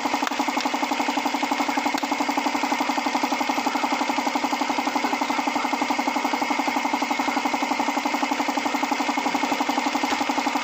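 An engine idling steadily, with a fast, even pulsing beat that keeps the same pace throughout.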